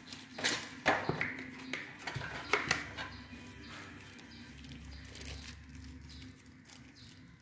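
Hands handling unboxed electronics and their packaging: a few sharp plastic clicks and knocks with crinkling plastic wrap, bunched in the first three seconds, then only faint handling noise over a steady low hum.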